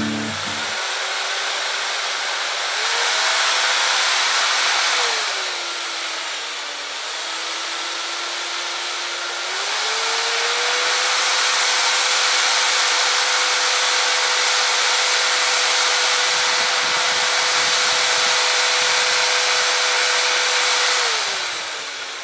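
Handheld electric paddle mixer churning soaked cardboard pulp in a plastic bin. The motor speeds up about three seconds in, slows around six, speeds up again at about ten seconds, holds steady, and winds down near the end.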